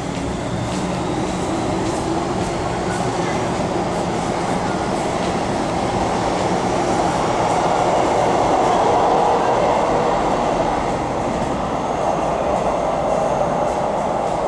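MTR M-Train electric metro train running into the station platform. Its wheel and motor rumble swells to a peak about nine seconds in and then eases off as it slows, with light clicks from the wheels over the track.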